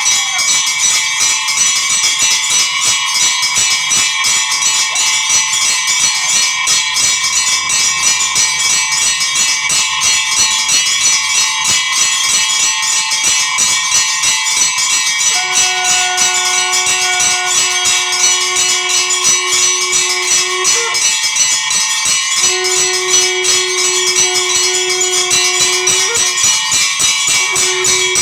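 Temple bells ringing continuously in a dense, fast clatter during worship. In the second half a steady held tone sounds three times over the ringing, each ending with a short upward step in pitch.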